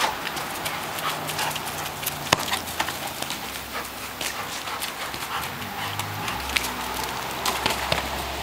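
Irregular sharp taps and knocks of a Labrador dribbling a soccer ball with its nose and paws, with one louder knock about two seconds in.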